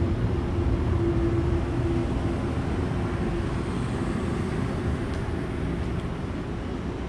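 A motor running with a steady low rumble and a held hum that fades out about two and a half seconds in, the whole sound easing slowly afterwards.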